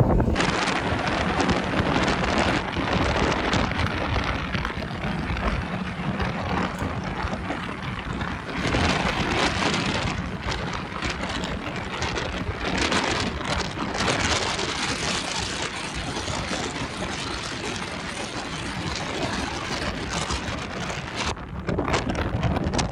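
Motorboat running at speed: a steady low engine drone under a loud rush of wind and splashing water that swells and eases in waves.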